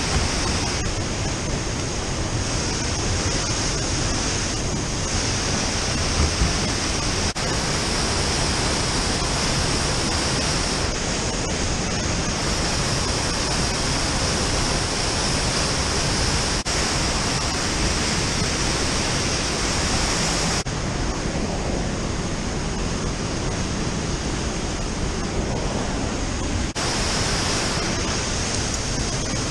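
Steady rushing roar of a river waterfall pouring into the pool below, an even noise that jumps abruptly in level a few times. A brief low knock about six seconds in.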